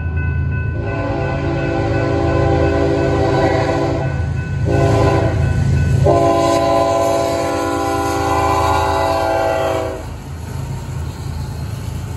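Horn of a BNSF GE Evolution-series diesel locomotive sounding for a grade crossing: a long blast, a short one, then a long one ending about ten seconds in, over the steady drone of the locomotives' engines working up a grade. After the horn stops, the locomotives pass with a heavy rumble as the train rolls by.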